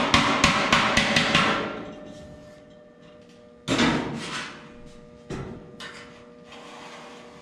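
A body hammer rapidly striking the sheet-steel roof line of a 1928 Ford Model A coupe, about five blows a second, raising a low, smushed spot flush with the body line. The blows stop about a second and a half in, followed by two separate knocks and then a hand rubbing along the metal edge near the end.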